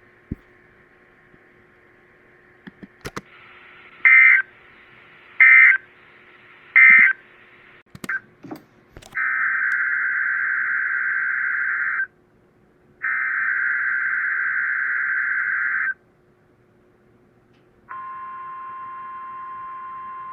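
Emergency Alert System digital data tones: three short bursts of the warbling SAME data signal about a second and a half apart, then two longer bursts of about three seconds each. Near the end a steady attention tone starts, signalling that a new weather alert is about to be read.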